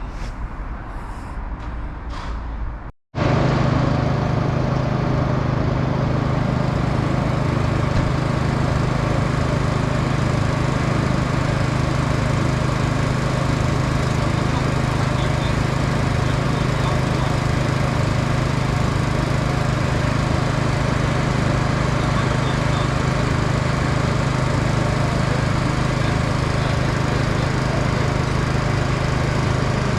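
Diesel train engine idling, a loud steady low hum that starts abruptly about three seconds in after a brief dropout; before that, quieter background sound.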